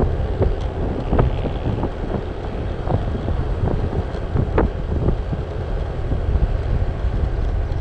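Wind rushing over the microphone on a motor scooter riding at about 50 km/h, over a steady low rumble of engine and tyres, with a few brief thumps of wind buffeting.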